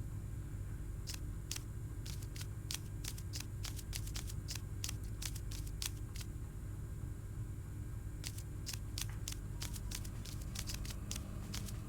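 A run of short, sharp crunching clicks, a few a second and irregularly spaced, over a low steady hum.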